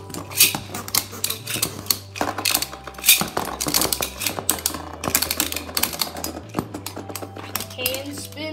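Several Beyblade Burst spinning tops clattering against each other and the bottom of a fabric storage bin: a rapid, uneven run of clicks and clacks.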